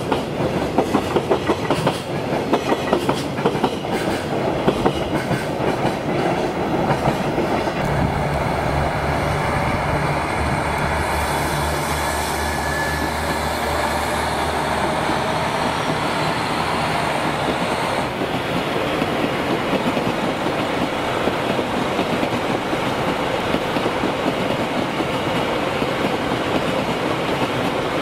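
Container freight wagons clattering over the rail joints in a quick, even rhythm. About eight seconds in, a KiHa 261 diesel limited express (Super Hokuto) comes through with a low diesel engine drone and a hiss, followed by a steady rolling rumble as its cars pass.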